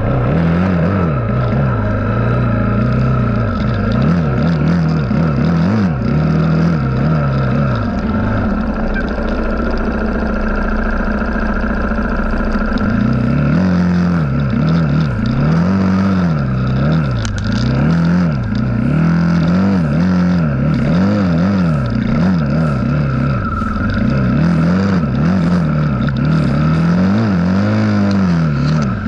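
KTM 500 XCF-W dirt bike's single-cylinder four-stroke engine worked on and off the throttle at low speed, its pitch rising and falling about once a second. A steadier, lower stretch lasts several seconds in the middle.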